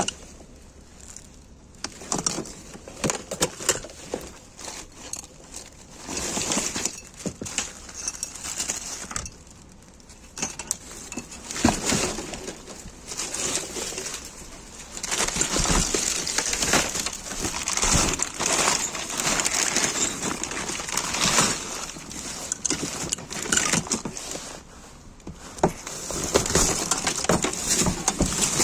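Rummaging through junk: plastic bags crinkling and rustling in uneven bursts, with scattered knocks and clatters of objects being shifted.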